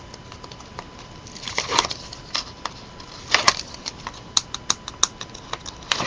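Backing liner being peeled off strips of double-sided score tape stuck to cardstock: a few short crackling rips and sharp ticks, coming more often in the second half.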